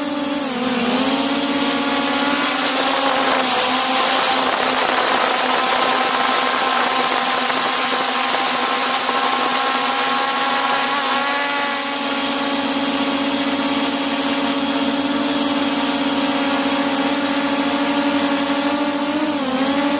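Propellers and motors of a DJI Mavic 2 Pro quadcopter drone heard at very close range from a camera mounted on top of it: a steady multi-tone whine whose pitch dips briefly just after the start and again near the end.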